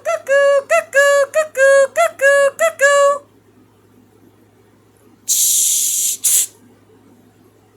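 A cuckoo clock's call, a quick run of about six two-note 'cuck-oo' calls, each a short higher note falling to a longer lower one, stopping about three seconds in. About two seconds later comes a high hiss lasting about a second.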